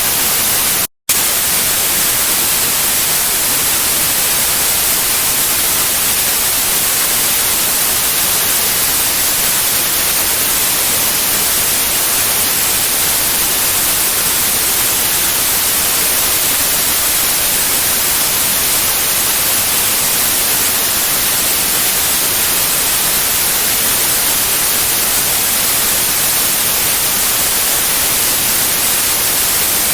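Steady white noise, an even hiss strongest in the high end, cut by a brief gap of silence about a second in.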